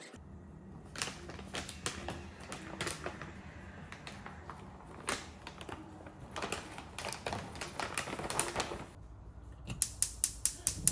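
Irregular light clicks and taps, coming in clusters, with a quick run of clicks near the end, over a low steady hum.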